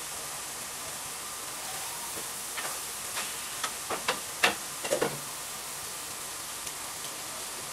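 Chopped meat and sausage sizzling steadily in a frying pan over a gas flame, with a spatula scraping and knocking against the pan. A run of clinks and knocks comes about halfway through, the last ringing one as a glass lid is set on the pot beside it.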